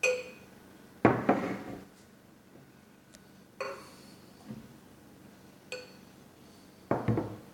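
Glass bottles and drinking glasses clinking and knocking against each other and the table while drinks are mixed. There are several sharp clinks, some ringing briefly, and a couple of heavier knocks.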